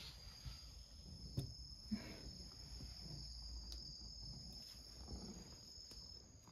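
Faint, steady high-pitched trilling of crickets or other singing insects, with a few scattered sharp clicks and soft knocks.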